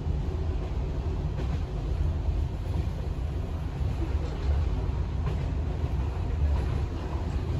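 Passenger train running: a steady low rumble, with a few faint clacks from the wheels.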